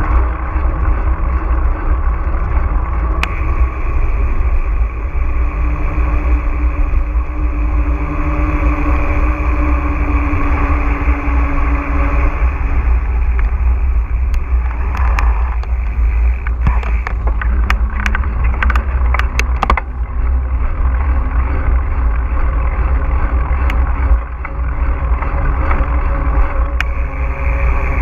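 Steady wind and motion rumble on a GoPro action camera during a mountain-bike ride, with a run of sharp clicks and rattles about halfway through.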